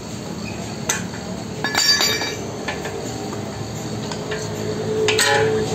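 Sharp metal clinks from steel tools and the strut assembly being handled: one about a second in, a cluster near two seconds, and more near the end.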